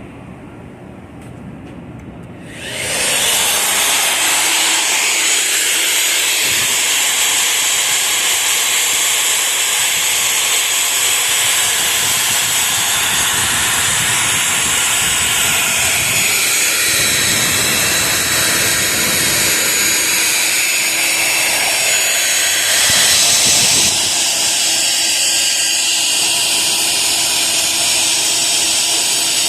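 Portable line boring machine starting up about three seconds in and running steadily with a loud hiss, cutting out the worn center-pin bore of a John Deere 624K loader's frame.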